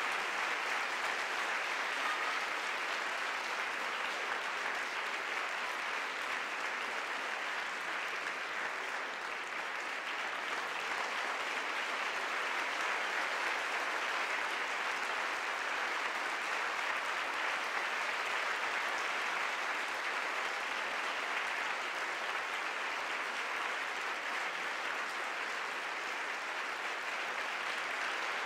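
Large theatre audience applauding, a dense, steady clapping that holds at an even level without a break.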